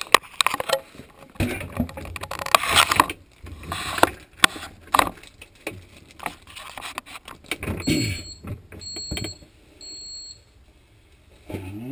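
Plastic freezer basket rail being handled and worked along its geared track, a run of clicks, knocks and scraping. About eight seconds in come three short high beeps in a row, typical of a refrigerator's door-open alarm.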